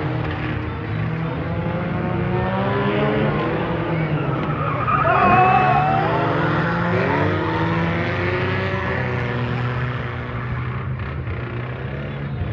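Several old demolition-derby cars revving hard as they spin and slide on asphalt, with engine pitch rising and falling over each other, and tyres squealing loudest about five seconds in.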